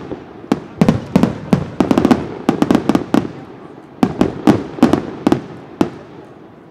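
Aerial firework shells bursting: volleys of sharp bangs, several in quick succession, each trailing off in an echo, with a short lull at about three and a half seconds.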